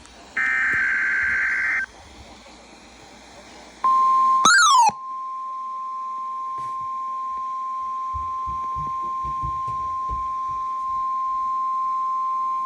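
Emergency Alert System tones from a NOAA Weather Radio alert. A short digital data burst sounds, the last of the SAME header bursts. About four seconds in, the steady single-pitch 1050 Hz weather radio warning tone starts, with a brief rising-and-falling warble just after it begins, and holds for about nine seconds.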